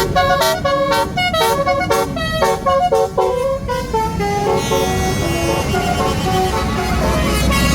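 Tour bus basuri horn playing a melody: a quick run of short pitched notes, then, from about four and a half seconds in, longer held notes, over a low rumble.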